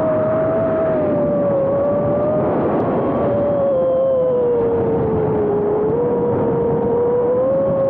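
Motors and propellers of a 6S 5-inch FPV freestyle quadcopter in flight, heard from its onboard camera: a steady whine that slowly wavers up and down in pitch over a rushing noise of prop wash and air.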